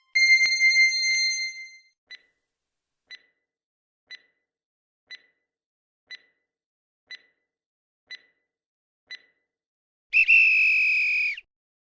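Quiz countdown timer sound effect: a ringing chime, then ticks about once a second, eight in all, ending in a steady high alarm beep about a second and a half long that marks time up.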